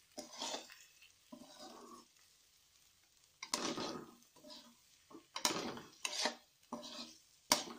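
Slotted steel spatula scraping and knocking against a metal kadai as egg and chopped spring onions are stirred together, in irregular strokes with a sharp knock near the end.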